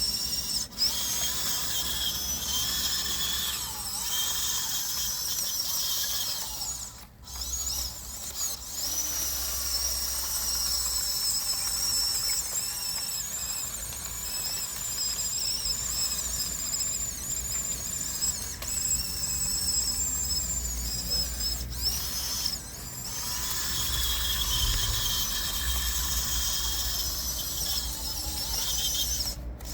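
Small electric motors and gearboxes of RC construction models whining at a high pitch, wavering up and down as they run. There is a brief break about seven seconds in.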